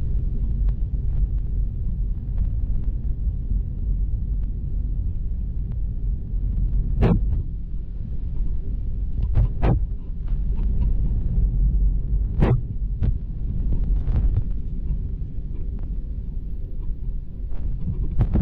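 Steady low rumble inside the cabin of an Airbus A320 airliner on approach, made by its engines and the airflow over the fuselage. A few brief knocks, about four, stand out above the rumble.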